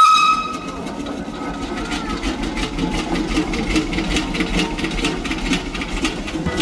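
Workshop machinery running: a steady low hum with a rapid, even clatter of about five ticks a second. It opens with a short whistle-like tone.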